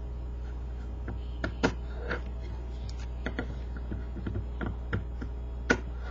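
Scissors snipping into a strip of printer paper: a series of short, irregular clicks and snips.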